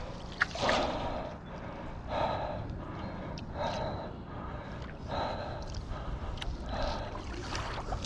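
Paddle board squeaking in a steady rhythm, about once every one and a half seconds with each paddle stroke: short squeaky, dolphin-like noises over the wash of water.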